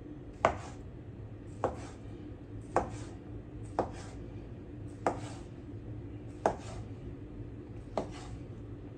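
Kitchen knife cutting through food and knocking on a cutting board: seven separate cuts, slow and evenly paced, about one to one and a half seconds apart.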